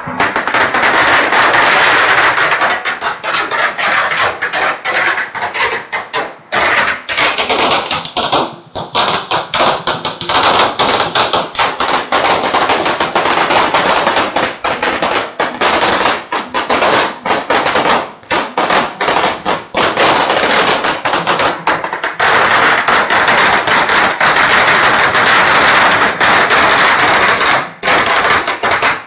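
Strings of firecrackers going off in a long, dense crackle of rapid bangs, with brief lulls about six, eight and eighteen seconds in.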